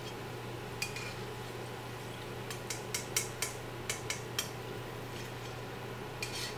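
Metal slotted spoon clinking against metal while lifting fried pakoras: a single clink about a second in, a quick run of sharp clinks in the middle, and a couple more near the end, over a steady low hum.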